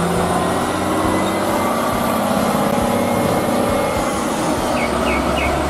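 Concrete mixer truck's diesel engine running steadily as the truck drives slowly by on a wet road, with tyre noise under it. A few short high chirps come near the end.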